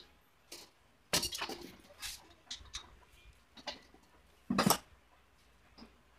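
Hand tools clinking and knocking against a Hyundai Starex automatic transmission case and the workbench during assembly: irregular sharp metallic taps, with a heavier knock and dull thud about four and a half seconds in.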